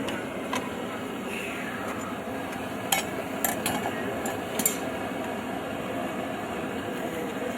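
A few light metal-on-metal clinks, about four within two seconds near the middle, as the blacksmith handles the forged steel snake with his tools, over a steady background hum.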